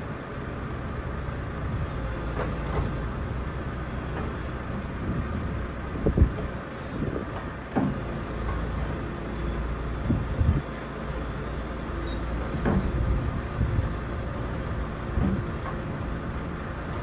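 Komatsu PC210 hydraulic excavator, some 30 years old, working with its diesel engine running steadily as the boom and arm move. About five sharp clanks of the bucket and linkage are spread through the sound.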